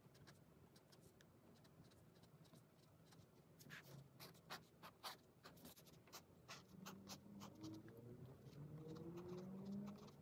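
Fineliner pen scratching short strokes on sketchbook paper, with a quick run of scratches and taps in the middle. A faint low hum rising in pitch comes in behind it near the end.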